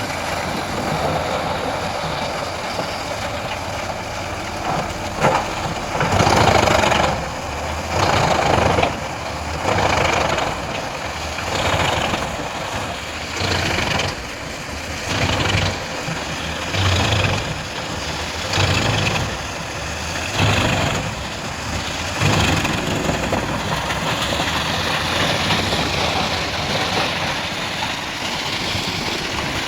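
Large wood chipper's engine running steadily, with a string of louder surges about every one and a half to two seconds from about five seconds in until past twenty seconds, as it chips wood.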